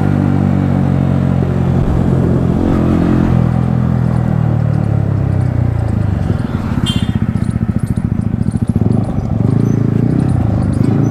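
Yamaha MT-15's single-cylinder engine breathing through an Akrapovic exhaust while riding, running steadily at first, then dropping to low revs about six seconds in, where each firing pulse can be heard. A brief high-pitched squeak comes about seven seconds in.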